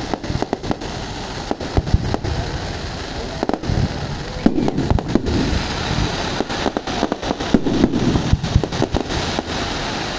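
Fireworks going off: an irregular run of sharp bangs and crackles over a steady hiss.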